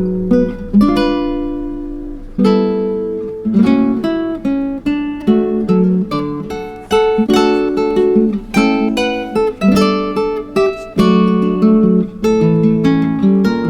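Background music: acoustic guitar picking notes and strumming chords that ring and fade.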